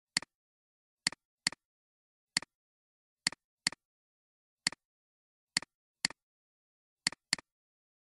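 Computer mouse button clicking about eleven times at an uneven pace. Each click is a quick double tick of press and release, with dead silence between clicks.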